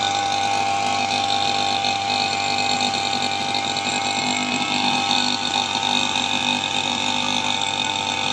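Gasoline brush cutter's small engine running at a steady speed while cutting grass.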